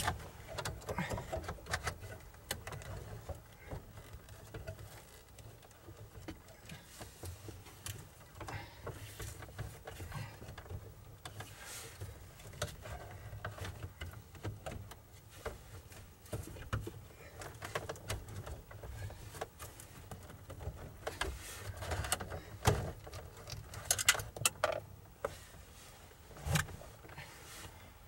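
Irregular light clicks, taps and metal rattles of hand tools and small parts being worked inside a truck's steering column, over a faint low hum.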